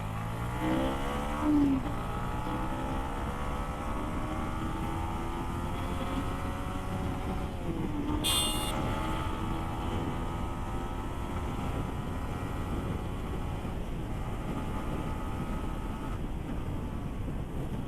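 Yamaha MT-15's 155 cc single-cylinder engine under way: it revs up quickly at the start, eases off briefly around the middle, then pulls steadily again over low wind rumble. A short high-pitched sound cuts in a little past halfway.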